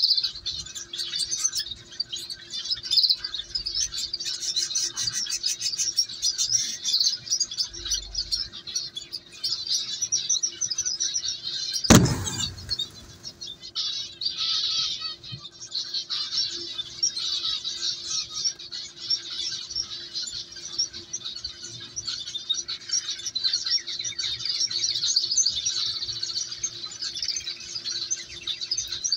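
Canary chicks cheeping rapidly and without pause, high begging calls at feeding time. A single sharp knock comes about halfway through.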